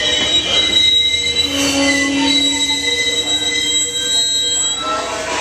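Amtrak bilevel passenger train creeping along a station platform as it brakes to a stop, its brake shoes and wheels squealing in several steady high tones over a low rolling rumble.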